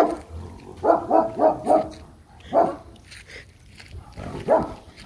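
A dog barking repeatedly: a sharp first bark, a quick run of four barks about a second in, then two single barks spaced apart.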